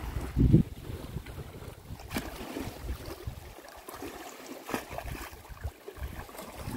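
Wind buffeting the microphone in gusts, strongest about half a second in, over small lake waves lapping against a gravel shore and rocks.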